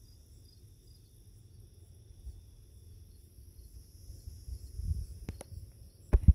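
Steady, evenly pulsing chirring of crickets and other insects in a rural evening. Under it runs a low rumble that swells about five seconds in. Near the end come two faint clicks, then two loud knocks.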